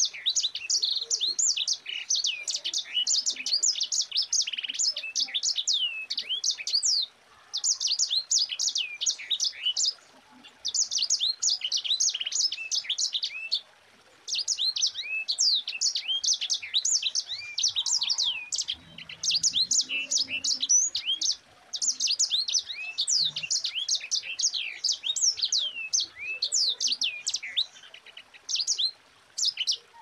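Sanger (grey singing finch) singing long, fast rolling phrases of high, tightly packed chirps, with short pauses between the phrases.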